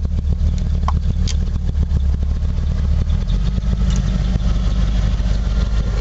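1979 Ford Bronco's V8 idling steadily, heard from inside the cab as the air conditioner is switched on. The owner says the engine runs with a miss. About three seconds in, the low engine note shifts.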